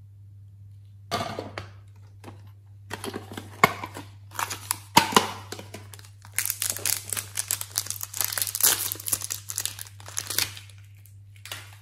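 Clear plastic packet around a purple clay crinkling as it is handled and torn open: scattered crackles at first, then a dense run of crinkling through the second half.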